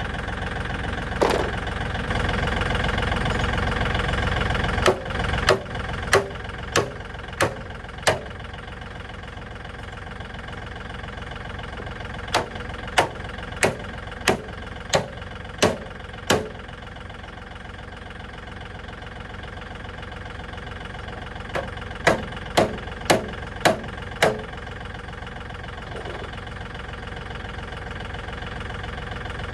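Tractor engine running steadily, louder for the first five seconds and then settling lower, with three runs of five to seven sharp knocks about one and a half a second.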